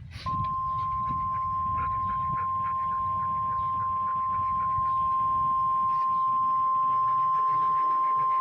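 NOAA Weather Radio warning alarm tone (1050 Hz) from a Midland WR-120EZ weather radio's speaker: one steady, unbroken high-pitched tone that starts a moment in. It is the alarm tone sent in the National Weather Service's weekly alarm test.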